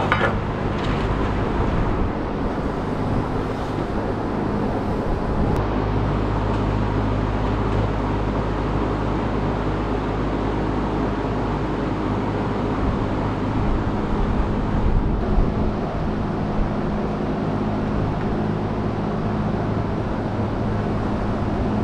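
John Deere 4066R compact tractor's diesel engine idling steadily, with a few light knocks near the start.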